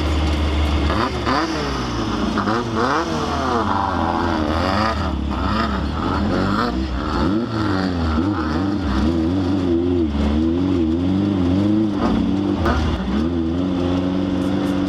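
Off-road race vehicle's engine revving up and down over and over, its pitch rising and falling in quick swings.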